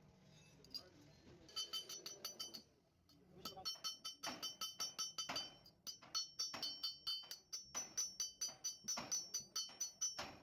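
A hammer striking sheet steel on a car body in quick succession, several blows a second, each with a bright metallic ring, with a short pause about three seconds in.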